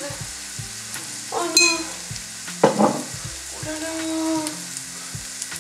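Chopped shallots sizzling in melted butter in a frying pan, a steady hiss. A few short pitched sounds sit on top of it: about a second and a half in, at about three seconds, and a longer one around four seconds.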